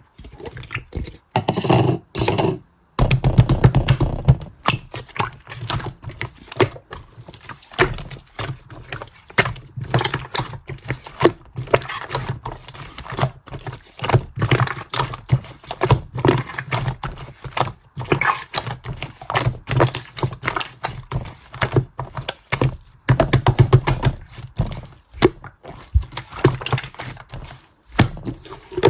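Clear slime being squeezed, stretched and folded by hand, giving a steady run of small sticky clicks and air-bubble pops, with a few louder squishes.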